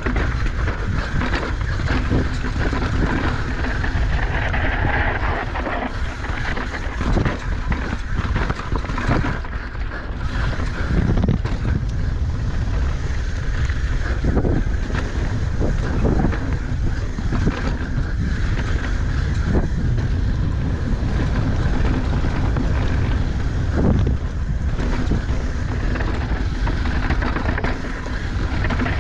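Wind buffeting a helmet camera's microphone at speed as a downhill mountain bike, a 2022 Specialized Demo Race, runs down a dirt and rock trail, with frequent knocks and rattles from the bike over bumps.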